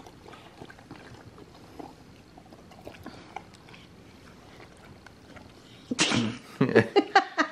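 Dog lapping water from the trough of a handheld collapsible pet water bottle: faint, scattered wet clicks. About six seconds in, louder rapid bursts begin.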